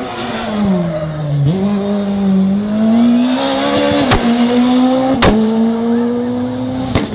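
Rally car engine at high revs: the pitch drops over the first second and a half as the car comes off the throttle, then holds high and climbs gradually as it pulls away. The sound jumps abruptly a few times.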